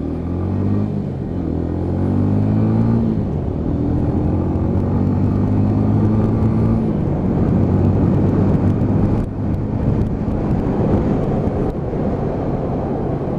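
Lexmoto Ranger motorcycle engine pulling away from a standstill, its pitch rising through one gear, dropping at a shift about three seconds in, then rising again through the next. From about halfway on, wind and road rush drowns out most of the engine as the bike reaches speed.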